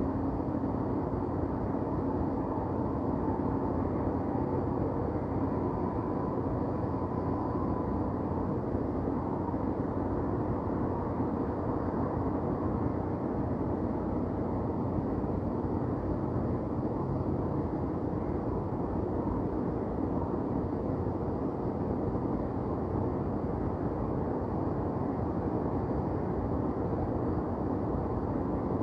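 Steady low hum of city traffic and urban noise, continuous and even, with no distinct events standing out.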